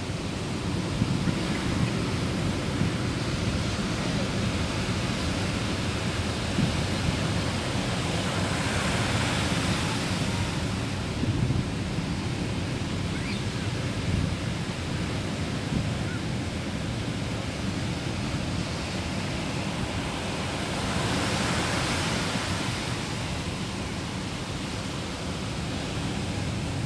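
Ocean surf breaking and washing up a sandy beach, a steady rush that swells twice, about nine seconds in and again about twenty-one seconds in, as waves break. Wind buffets the microphone underneath.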